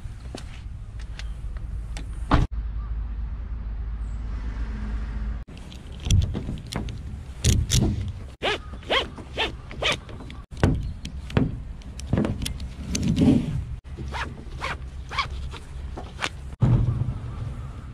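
Tie-down straps being pulled through their buckles and a car-top boat being handled on a roof rack: zipping strap pulls, clicks and thunks in short clips cut one after another, over a low rumble.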